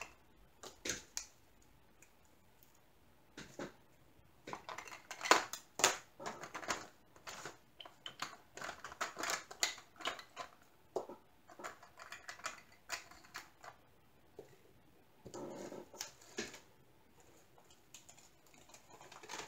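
Irregular clusters of small plastic clicks, taps and rustles as small plastic diamond painting drill containers and zip bags are handled on a tabletop, busiest through the middle stretch.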